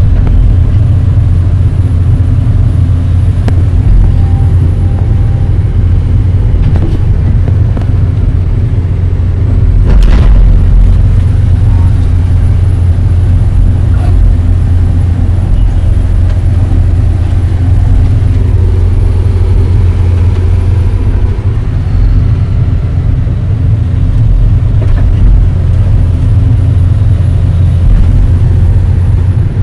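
Excavator's diesel engine running steadily under load, a loud low drone heard from inside the operator's cab as the bucket works loose soil, with a sharp knock about ten seconds in.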